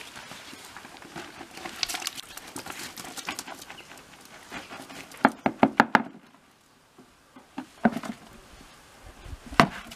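Irregular knocks and taps from hand work with a clay, straw and dung plaster mix, with a quick run of sharp knocks about five seconds in and a few more near the end.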